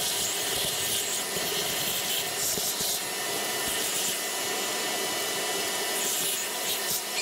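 Shop vacuum running steadily as its hose nozzle sucks rust and gunk out of the cylinder bores of a seized, water-filled Kawasaki 1500 four-stroke jet ski engine, with a few short clicks along the way.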